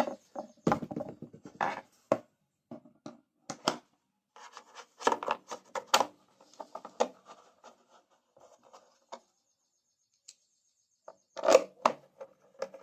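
Irregular rubbing, scraping and clicking of the air cleaner (breather) housing being handled and fitted onto the small generator engine's carburetor, in short bursts with quiet gaps.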